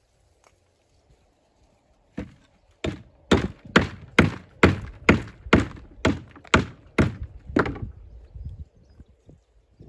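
Hammer striking stone: about a dozen sharp blows, roughly two a second, starting about two seconds in and stopping near eight seconds, typical of dressing or shaping a stone for a dry stone wall.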